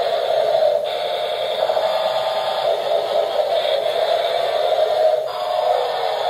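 Toy helicopter's electronic sound effect playing: a steady, warbling buzz with brief breaks about a second in and about five seconds in.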